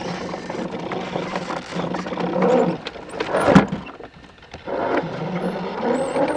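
Electric drivetrain of a scale RC crawler truck (Novak 18.5 brushless motor through an Axial transmission) whining as it crawls over a log, the pitch shifting with throttle. About three and a half seconds in there is a loud scrape and knock of the truck on the wood, then a brief near-stop before the whine picks up again.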